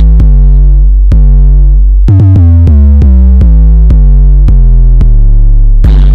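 Bass-boosted electronic music: deep synthesizer bass notes held under a drum-machine beat of about two hits a second, played very loud.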